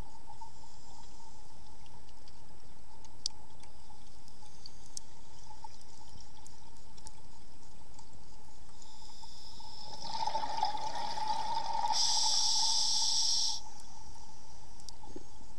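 Underwater sound through a dive camera: a steady hiss with a faint constant tone and scattered small clicks, then about ten seconds in a rush of bubbling from a scuba diver's exhaled breath, lasting some three and a half seconds and strongest near its end.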